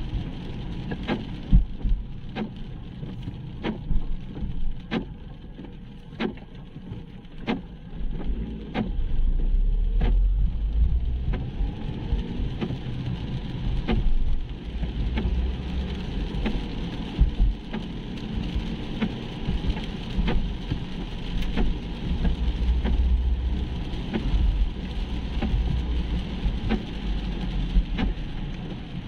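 Inside a car driving on a wet road in the rain: a steady low rumble of engine and tyres on wet tarmac, with sharp ticks of the windscreen wipers a little over a second apart. The rumble swells for a few seconds near the middle.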